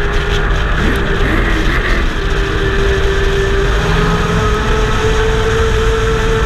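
Pro Truck racing engine running hard at speed, heard from on board the truck over steady wind and road rush. Its pitch dips briefly about a second in, then holds and creeps slightly higher.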